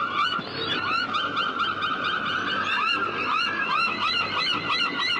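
A flock of birds calling all together: many short, hooked calls overlapping each other, several a second, in a dense chorus.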